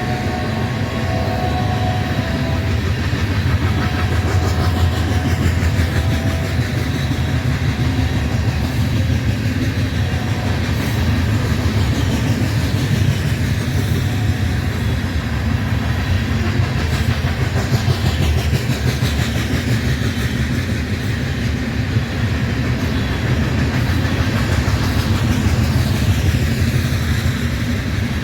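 Freight cars of a grain train rolling steadily past, a continuous low rumble of steel wheels on rail with clickety-clack over the rail joints.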